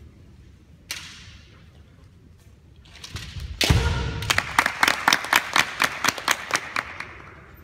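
Kendo bout: a sharp crack about a second in, then a heavy thud of a foot stamp and shinai strike on the wooden floor about three and a half seconds in, followed by a rapid run of sharp clacks, about five a second, that fades near the end.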